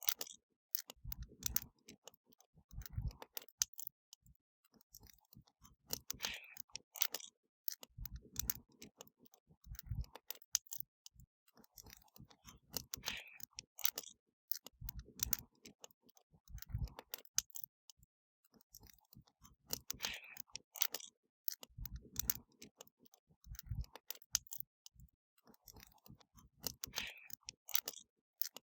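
Wood fire crackling, with sharp snaps and pops, pairs of dull low thuds and a brief hiss every few seconds. The same pattern comes round again about every seven seconds, like a short repeating loop.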